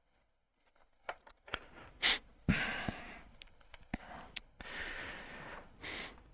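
After a second of near silence, breathing close into a headset microphone, mixed with sharp clicks and rustles as the headset is handled and adjusted.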